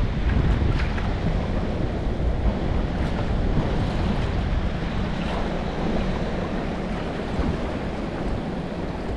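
Wind buffeting the microphone outdoors: a steady, uneven rumbling rush, strongest in the low end.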